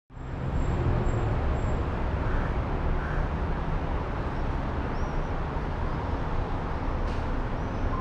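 Outdoor town ambience: a steady low rumble of distant road traffic, fading in at the very start.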